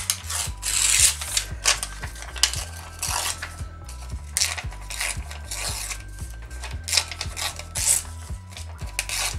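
Vellum (tracing paper) torn by hand in a series of short, irregular rips, with the sheet rustling and crinkling between tears.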